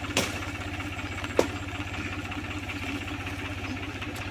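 New Holland tractor's diesel engine running steadily at low revs with an even pulsing beat. Two sharp knocks stand out near the start, about a second apart.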